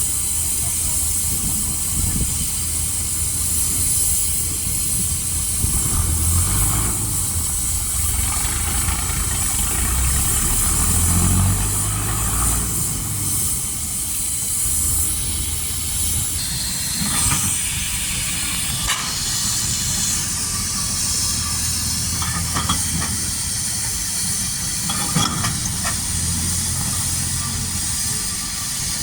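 Steam engine hissing steadily as steam escapes, over a low rumble that swells and fades, with a few short knocks.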